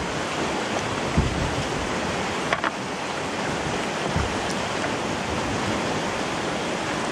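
Steady wind noise on the microphone, with two brief low thumps, about a second in and about four seconds in.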